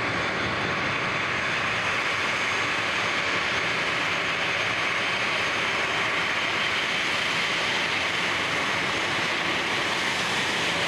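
Boeing 737-800's CFM56 jet engines running at taxi power: a steady hiss with a faint high whine.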